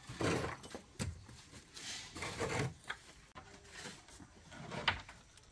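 Scattered knocks with rubbing and scraping noises, the sharpest click near the end.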